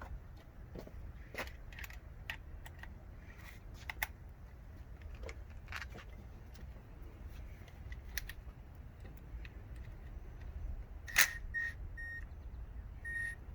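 Scattered light clicks and knocks of handling over a low steady rumble. Near the end there is a sharp click, then a few short, high electronic beeps.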